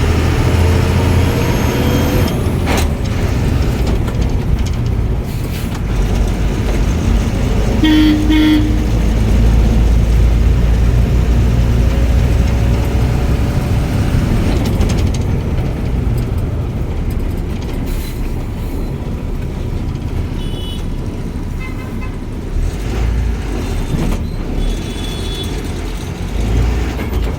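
Euro 4 Ashok Leyland diesel bus driving on a road test after its differential crown and pinion were reset: steady low engine and road rumble, with a short horn toot about eight seconds in.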